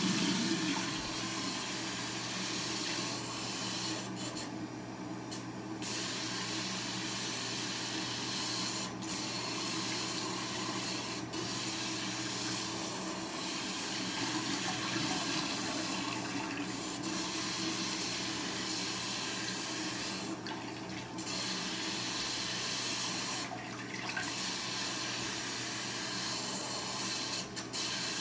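Tap water running steadily while hair is rinsed out under it, thinning briefly a few times.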